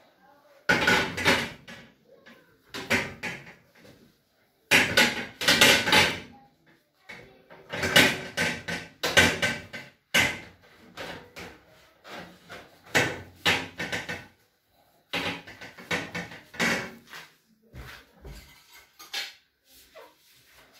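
Repeated bursts of kitchen cleaning noise: a gas stove's glass lid and hob being wiped and its parts handled, with rubbing and knocks. The bursts are irregular and come every second or two.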